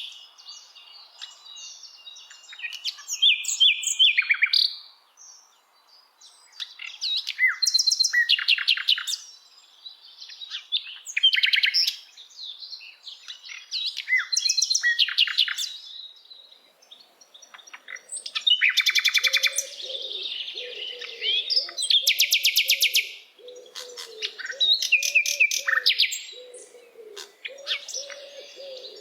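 Several songbirds singing and chirping in bursts of rapid high trills every few seconds. From about two-thirds of the way through, a low cooing call repeats steadily underneath.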